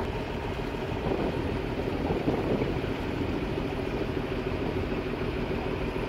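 Off-road vehicle engine running steadily in the mud, a continuous low hum with one steady tone in it.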